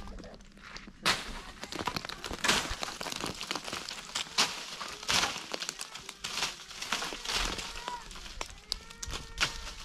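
Irregular crackling and snapping of dry twigs and brush, with sharp cracks scattered through and a few faint calls near the end.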